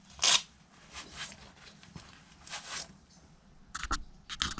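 Hand cleaning of a pressure washer's valve parts: a few short scrubbing strokes, then several quick clicks and taps of small parts being handled near the end.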